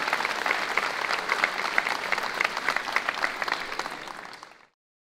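Crowd applauding, a dense patter of many hands clapping, fading out about four and a half seconds in.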